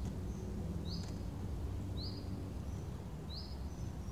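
A bird repeating one short, high call about once a second, three times, over a steady low rumble of outdoor background noise.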